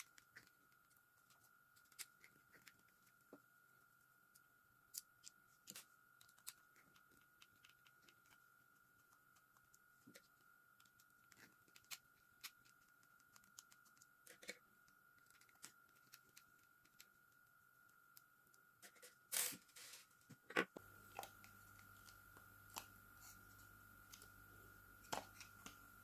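Faint, scattered clicks and light taps of small parts being handled during disassembly, over a faint steady high tone. About 19 seconds in comes a brief louder scrape, then a sharp click.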